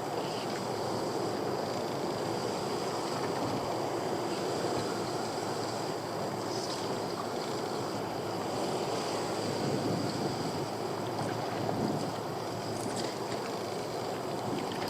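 Steady wind rushing across the microphone, with water lapping against a small boat's hull.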